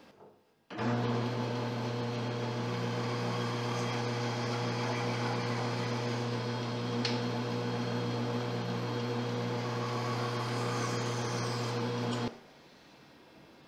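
Bandsaw running with a steady hum as its blade cuts through a butternut block. It starts suddenly about a second in and cuts off abruptly near the end.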